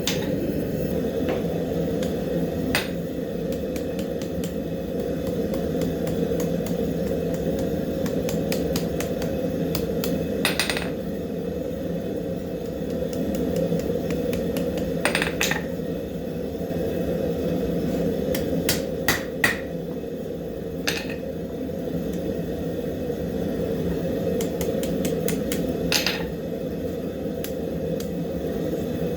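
Hammer tapping quarter-inch steel round-stock hooks on an anvil, a scattered handful of light strikes at irregular intervals, over the steady roar of the forge running in the background.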